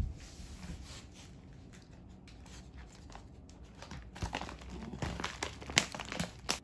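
A plastic snack bag crinkling and rustling as a raccoon grabs and paws at it, the crackling growing denser and louder in the last two or three seconds. A brief knock comes right at the start.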